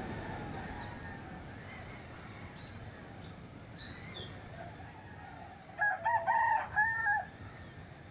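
A rooster crowing once, a call of about a second and a half near the end, over a faint outdoor hiss. Small birds chirp faintly and high earlier on.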